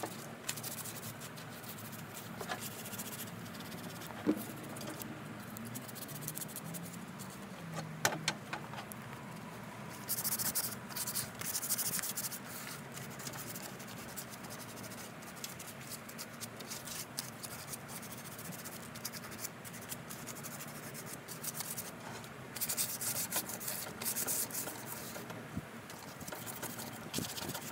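A wooden rocking chair being hand-sanded with a sanding sponge: scratchy back-and-forth rubbing strokes. The strokes come in quick bursts, heaviest about ten seconds in and again a little over twenty seconds in.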